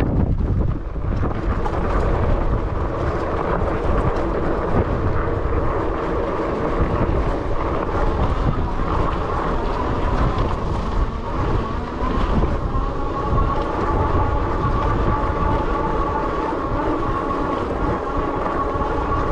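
Dirwin Pioneer e-bike's 750 W electric motor whining under load while climbing a steep dirt trail, over a low rumble of its fat tyres on the dirt. The whine grows stronger and steadier about two-thirds of the way through.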